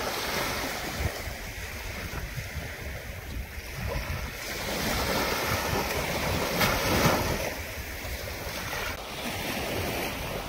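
Small waves washing onto a sandy shore, with wind blowing across the microphone.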